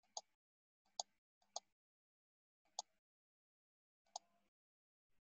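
Five sharp, identical computer-mouse clicks at uneven intervals of roughly a second, each short with a faint tail, against near silence.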